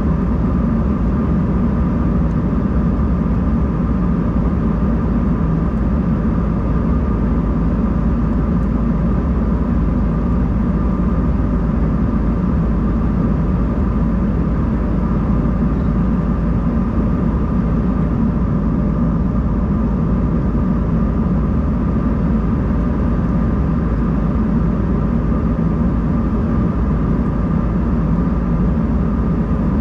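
Steady cabin drone of an Embraer 190-E2 airliner in flight: engine noise and airflow rumble, with a thin steady whine running through it.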